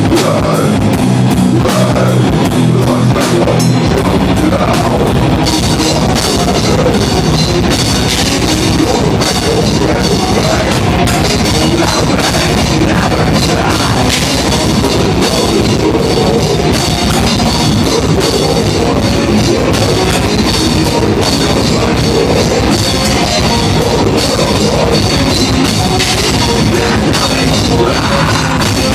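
Live rock band playing loudly: drum kit and electric guitar, with the low end filling out about four seconds in.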